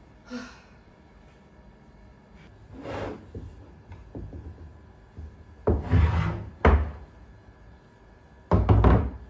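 A short sigh at the start, then a wooden monitor stand being handled and set down on a desk: a few scrapes and knocks of wood against wood, loudest in the middle and near the end.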